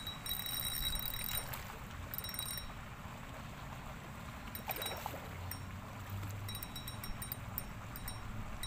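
Fishing reel's drag buzzing in short runs as a hooked fish pulls line, then a series of rapid clicks near the end.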